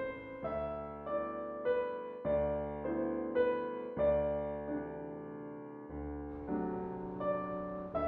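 Slow, soft solo piano music: sustained chords, each with a deep bass note, change about every two seconds beneath a simple melody.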